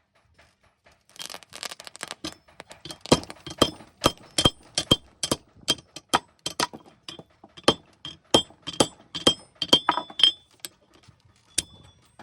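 Hand hammer striking steel on an anvil at about two blows a second, each blow leaving a high metallic ring; a flurry of lighter, quicker taps comes first, and the blows thin out near the end.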